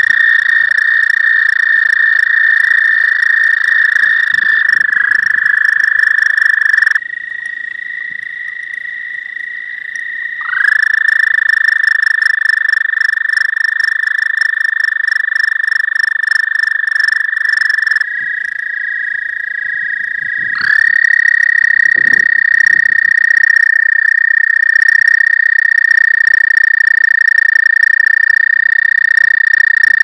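Male American toads trilling their spring breeding call: long, steady, high musical trills. The nearest toad's trill breaks off about seven seconds in, another starts a few seconds later and runs about eight seconds, and a third starts near twenty seconds in and carries on. A fainter trill from another toad fills the gaps.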